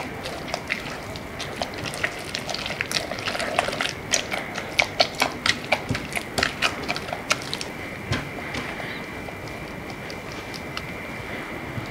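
Choux pastry dough for churros being beaten by hand with a silicone spatula in a nonstick pot as the eggs are worked in: a run of sticky slaps and clicks, quickest and loudest from about four to seven and a half seconds in, about three a second.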